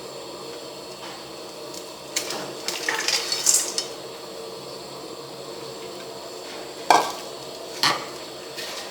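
Cooking pots and utensils clattering about two to four seconds in, then two sharp knocks about a second apart.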